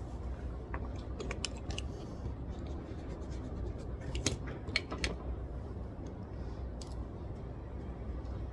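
Small sharp clicks and snips from desk work, in two clusters about a second in and around four to five seconds in, over a steady low room hum.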